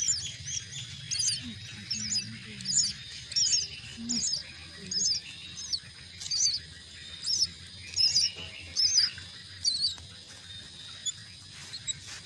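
Myna chicks giving short, high-pitched begging chirps at about two a second, stopping shortly before the end.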